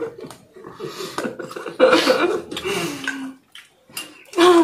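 Several people laughing together in giggles and breathy bursts, the loudest about two seconds in, ending in a falling laugh.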